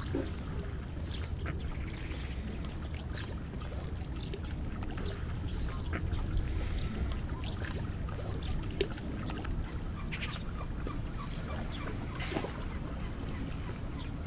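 Ducks calling now and then over a steady low rumble.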